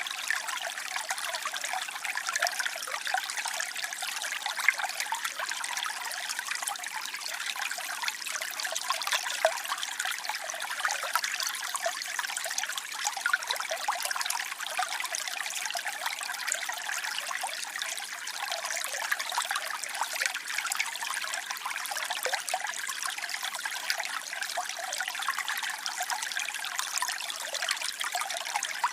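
Waterfall: a steady, splashy rush of falling water, bright and hissy with little deep rumble.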